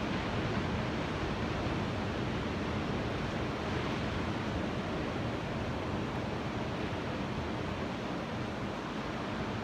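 Ocean surf: a steady, even wash of waves with no single break standing out.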